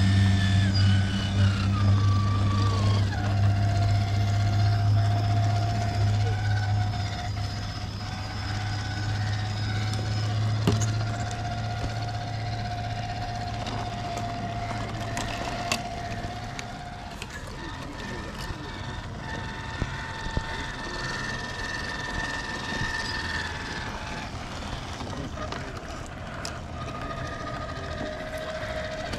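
A 1/10-scale RC crawler truck's motor and drivetrain whine as it crawls over dirt and rocks, the whine stepping up and down in pitch with the throttle. A low steady hum lies under it for the first half and drops away about sixteen seconds in, with a few sharp clicks along the way.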